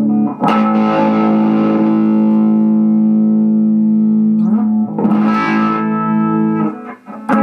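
Electric guitar chords played loud and distorted through a homebuilt Fender 5F1 Champ valve amplifier. The chords ring on and are struck again about halfway through. Near the end the sound briefly cuts out, which the builder first blames on a dodgy lead and then on the scratchy volume pot.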